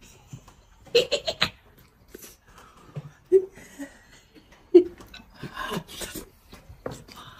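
A short burst of laughter about a second in, then faint scattered clicks and taps of eating at the table: a boiled egg being peeled and chopsticks in a bowl of noodles.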